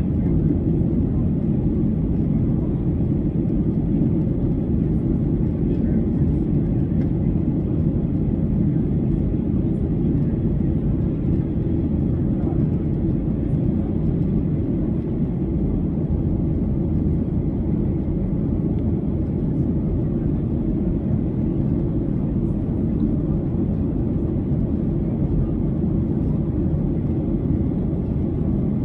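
Steady cabin noise of a Boeing 737-800 in flight, heard from a seat over the wing: a constant low rumble from its CFM56-7B turbofans and the rushing airflow, with no change in pitch.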